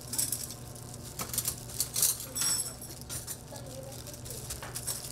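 Kitchen prep at a food stall: a string of sharp clicks and clinks of utensils and containers, with one ringing metallic clink about two and a half seconds in, over a steady low hum.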